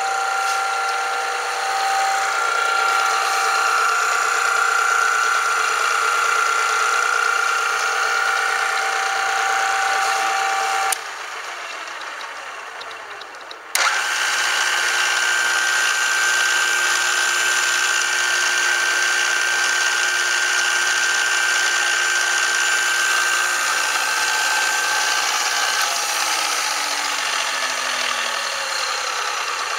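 Wilton Arboga A2608 gear-head drill press spindles running under their 1-horsepower motors with a steady gear whine. About eleven seconds in the whine cuts off and a quieter running sound is left. A few seconds later the spindle starts again with a higher-pitched whine, which stops near the end, while a lower tone falls in pitch as the spindle winds down.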